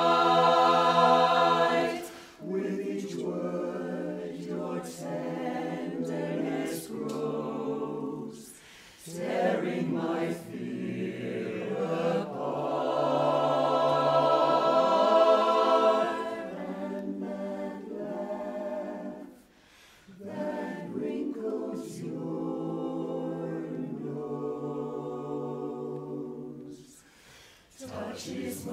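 Mixed men's and women's barbershop chorus singing a cappella in close harmony: held chords that are loud at the start and swell loud again near the middle, with short breaks between phrases.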